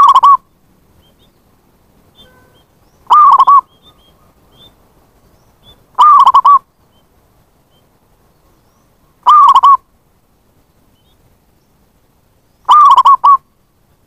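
Zebra dove (perkutut) song: five short, loud phrases of ringing coos, one about every three seconds.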